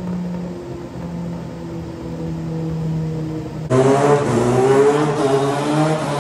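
2014 Suzuki GSX-R750's inline-four engine running on a chassis dyno through a cat-deleted M4 slip-on exhaust. It holds a steady note at first, then about four seconds in turns suddenly much louder, revving with the pitch rising and wavering.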